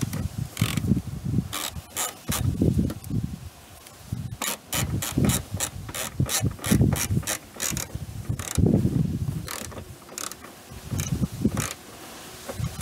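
Socket ratchet wrench clicking in repeated quick runs as the wiper motor and linkage mounting bolts are tightened, with duller low sounds between the runs.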